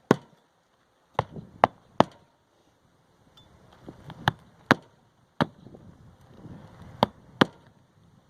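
Magnetic roofing hatchet hammering roofing nails through asphalt shingles: about nine sharp strikes in quick groups of two or three, with light shuffling of the shingles between them.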